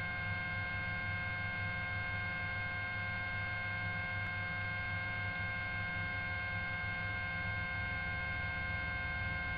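Steady hum from the patrol helicopter's open audio/intercom channel between radio transmissions. It has several constant high tones over a low drone, unchanging throughout.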